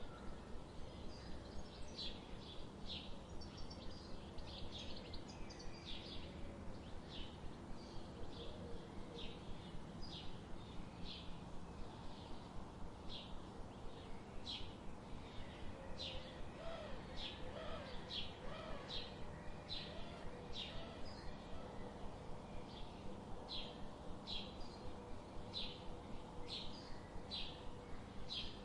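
Small songbirds chirping: short high chirps repeating about once or twice a second, with a few fainter, lower calls about halfway through, over steady background noise.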